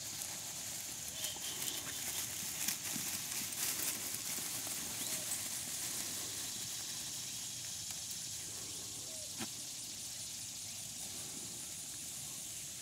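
Outdoor ambience over grass: a steady high hiss, with light rustling and scuffing of footsteps through the grass, busiest in the first few seconds.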